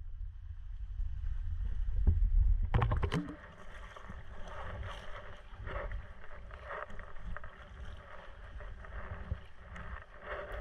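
Kayak paddle strokes dipping and splashing in calm sea water, with water slapping along the hull of a Prijon Seayak 500 LV sea kayak. A low rumble on the microphone stops about three seconds in, leaving the irregular splashes of the strokes.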